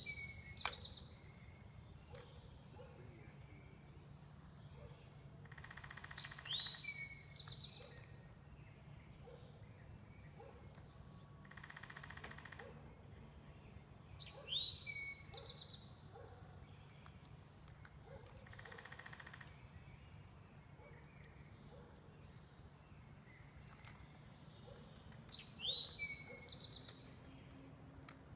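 Wild songbirds singing faintly: one bird repeats the same short, high phrase about four times, several seconds apart, and a run of quick, evenly spaced high notes joins in the second half. A steady low hum runs underneath.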